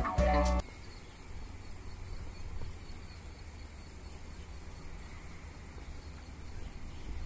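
Background guitar music cuts off about half a second in. It gives way to steady outdoor ambience: a high, even insect buzz over the low rumble of a train still far off and approaching.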